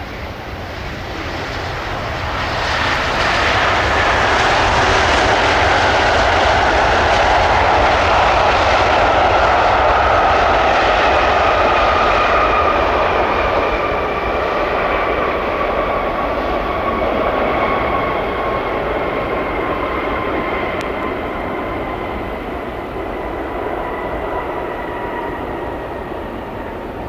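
Airbus A350-900's Rolls-Royce Trent XWB engines on landing rollout: the roar swells about two to four seconds in, typical of reverse thrust being applied after touchdown, then slowly eases. A high whine glides gradually down in pitch as the engines spool down and the airliner rolls away.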